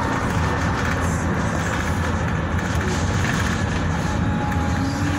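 A bus heard from inside while it drives: a steady engine rumble and road noise.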